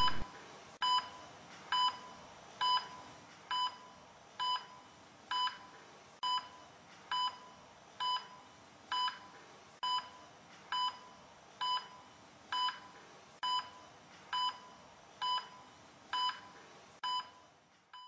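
Hospital heart monitor beeping a steady pulse, one short beep about every 0.9 seconds, stopping shortly before the end: the sign of a heartbeat picked up again after the defibrillator shock.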